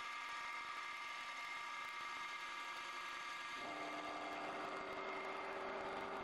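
CNC wood lathe running as it turns a wooden baseball bat: a steady machine hum with a high whine, joined by a lower hum about two-thirds of the way through.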